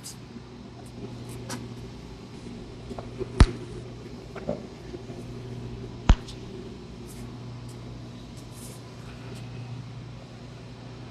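Two sharp cracks about three seconds apart, joints popping under a chiropractic adjustment, with a few fainter ticks, over a steady low hum.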